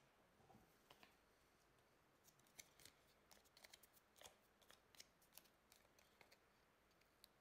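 Faint, irregular small clicks and crinkles of fingers handling a backing sheet of flat stick-on fly eyes, picking an eye loose. The clicks cluster from about two seconds in until shortly before the end.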